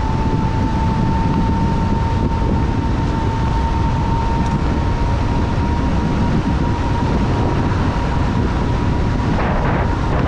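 Kaabo Wolf King GT electric scooter at full speed, about 50 mph: its hub motors give a steady high whine that creeps up slightly in pitch as it accelerates, over heavy wind rush on the microphone.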